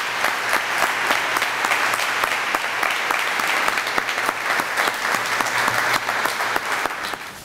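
Audience applauding, a dense run of handclaps that dies away near the end.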